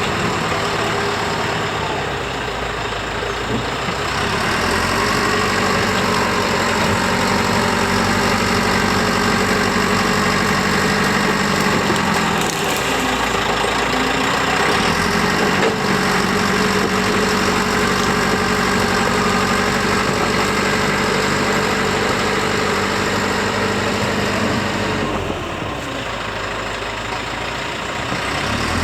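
Bulldozer engine running steadily, its note sagging and then picking back up a few times, about a third of the way in and again near the end.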